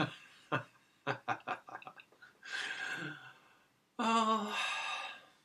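A man chuckling and murmuring a few indistinct words, with a louder voiced laugh or exclamation about four seconds in.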